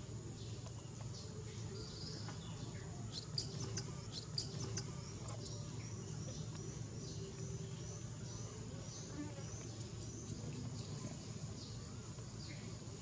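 An insect chirps high and regularly, about twice a second, over a steady low hum, with a few sharp clicks about three to five seconds in.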